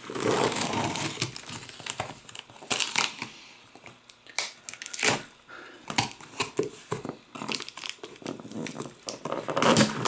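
A metal key slitting the clear packing tape on a cardboard box, with the tape tearing and the cardboard crinkling and scraping in short irregular bursts.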